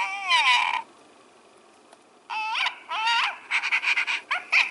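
Electronic toy puppy, a soft silicone Yorkshire terrier, playing recorded puppy whines and yips through its small speaker when its head is stroked. It opens with a drawn-out whine, gives two shorter rising-and-falling whines about halfway, then a quick run of yips and two last ones near the end.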